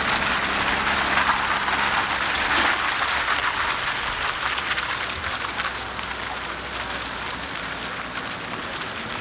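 Tractor-trailer dump truck driving slowly past on wet pavement: a steady hiss of tyres on water over the low hum of its diesel engine, both fading as it pulls away.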